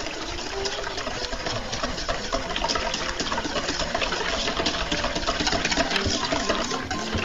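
Wire balloon whisk beating an egg yolk mixture in a stainless steel bowl: rapid, steady clicking and scraping of the wires against the metal.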